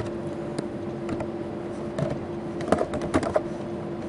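Typing on a computer keyboard: a few separate keystrokes, then a quicker run of several keys near the end.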